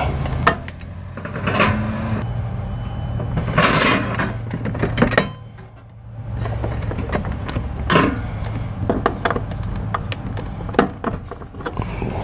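Wire letter cage clinking and rattling in scattered sharp clicks against a uPVC door's letterplate as it is handled and the letterplate's retaining screws are tightened back up, with a denser rattle about four seconds in and a brief lull near six seconds.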